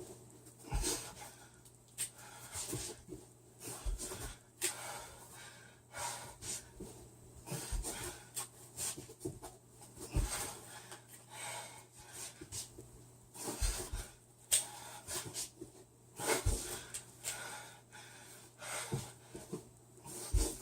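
Heavy panting breaths from a person doing push-ups, mixed with short clicking turns of a speedcube and several low thumps.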